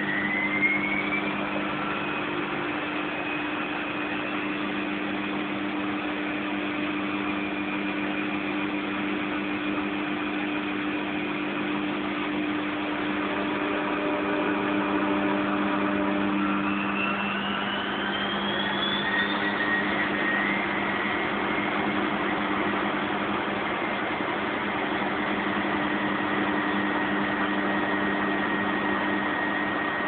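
Fagor front-loading washing machine on its spin cycle: a steady motor hum with a whine that rises in pitch over the first couple of seconds as the drum speeds up, then holds. About two-thirds of the way through the whine climbs again as the spin steps up to a higher speed, then settles into a new steady tone.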